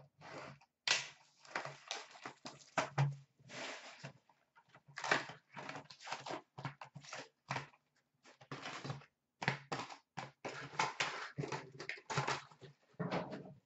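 A cardboard box of hockey card packs being opened, and the wrapped packs pulled out and handled: irregular rustling, crinkling and light scraping, with small taps as the packs are set down on a glass counter.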